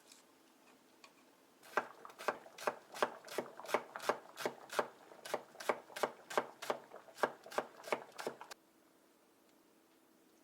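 Knife chopping food on a cutting board in a steady rhythm of about three strokes a second. It starts about two seconds in and stops abruptly near the end.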